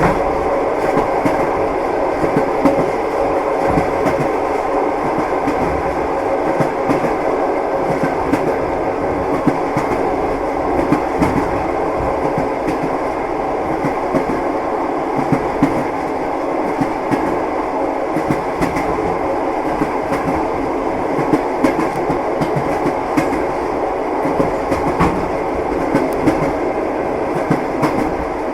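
Train wheels knocking over the rail joints, a steady clickety-clack over a continuous rumble of a moving railway carriage.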